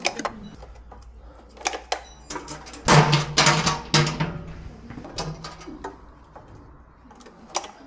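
Clicks and knocks of a wall electrical panel's hinged metal cover being handled: the latch snapping and the door swinging open, the loudest knock about three seconds in.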